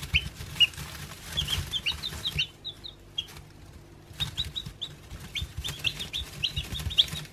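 Newly hatched chicken chicks peeping: many short, high cheeps, overlapping and coming in flurries, with a sparser stretch around the middle.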